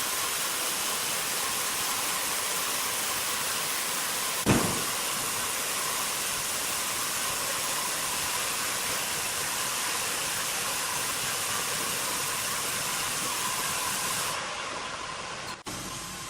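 Sawmill machinery running with a steady hiss and a faint hum, with a single sharp thud about four and a half seconds in. The sound dulls and then cuts off just before the end.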